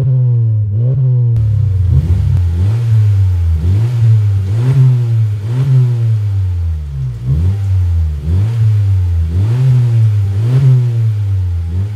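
2022 Honda Civic RS's 1.5-litre turbocharged four-cylinder breathing through an aftermarket catback exhaust with dual exits, blipped repeatedly while parked. The revs rise quickly and drop back about once a second.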